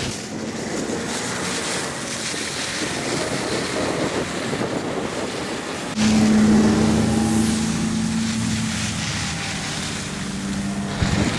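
Snowmobile engine running, with wind buffeting the microphone. About six seconds in the sound changes abruptly to a louder, steadier engine tone.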